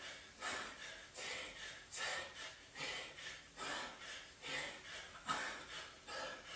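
A man breathing hard during fast bodyweight squats: short, forceful breaths in a steady rhythm, a little more than one a second, in time with the squats.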